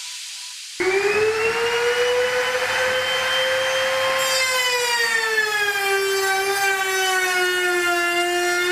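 Hand router mounted under a work table, running and cutting a board fed along the fence: a steady high whine that comes in about a second in and drops in pitch about five seconds in as the bit takes the cut.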